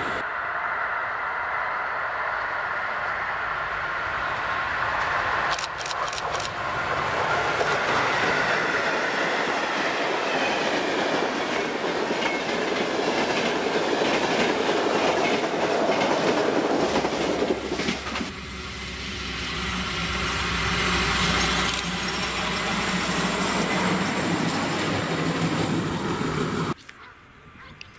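Class 383 Siemens Vectron electric locomotive hauling a passenger and car-carrier train past at speed, with wheels clattering over the rails and some wheel squeal. About two-thirds of the way through it gives way to a motorised rail draisine running past with a steady engine hum, and near the end the sound drops sharply.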